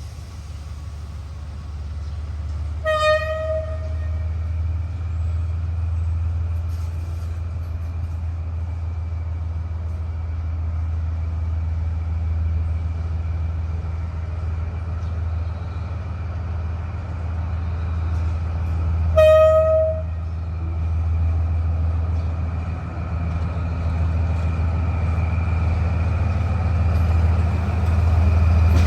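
Diesel locomotive running with a steady low rumble that grows louder toward the end as a departing train gets under way, with two short horn toots, about three seconds in and again about nineteen seconds in.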